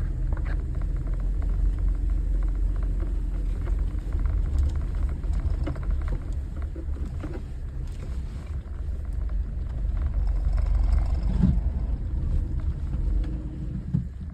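Jeep running slowly in low gear, a steady low engine and drivetrain rumble with scattered clicks and knocks.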